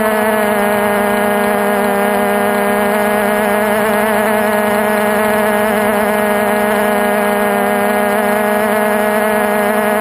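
Multirotor drone's electric motors and propellers, heard from the onboard camera, humming steadily as it flies, with a slightly wavering pitch.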